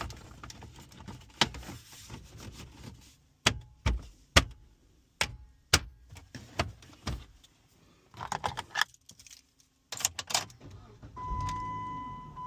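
Clicks, knocks and rattles of hands working on a car dashboard, remounting an aftermarket radio and its plastic trim. Near the end a steady electronic beep begins and holds.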